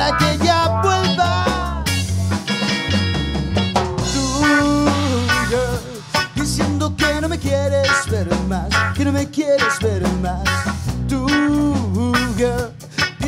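A band playing live: electric guitars, electric bass and a drum kit.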